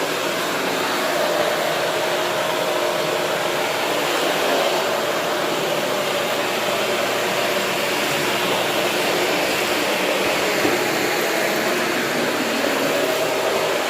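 Shark vacuum cleaner running steadily, a constant whir of motor and rushing air.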